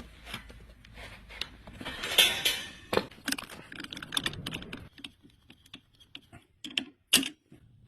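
A run of irregular light clicks and knocks, with a brief rustling stretch about two seconds in and a sharper click near the end.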